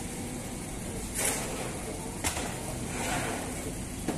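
Sangak bakery machinery, the rotating pebble-bed oven and dough conveyor, running with a steady rumble. Three sharp knocks are spread through it.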